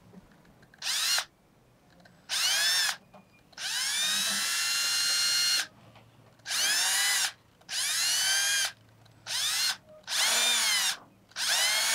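AEG cordless drill with a thin bit, run in about eight short bursts with a rising motor whine at the start of each, one of them lasting about two seconds. It is drilling a small centring hole into the worn-off plastic pivot axle of an old circuit breaker.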